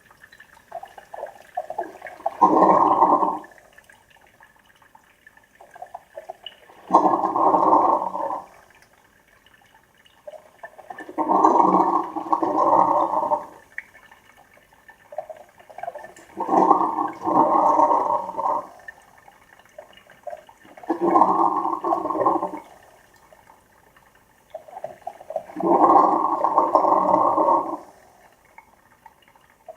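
Two coffee makers brewing at once, gurgling and sputtering in bursts of one to two seconds that come about every four to five seconds, with quieter sputters in between.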